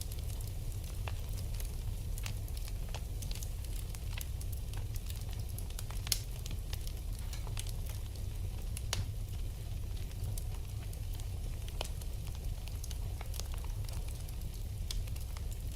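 Wood fire burning in a fireplace: a steady low rumble with irregular pops and crackles throughout, a sharper pop about six seconds in.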